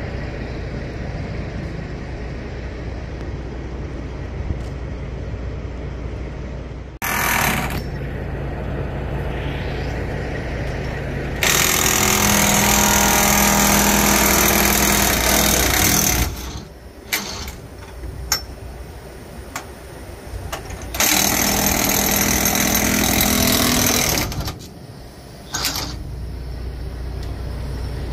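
Diesel truck engine idling steadily, broken twice by loud, harsh mechanical noise lasting about four and three seconds, with a shorter loud burst about seven seconds in and a few sharp clicks between.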